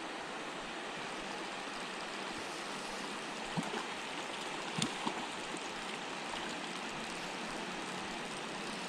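Low mountain river running over rocks: a steady rush of flowing water, with a few short clicks near the middle.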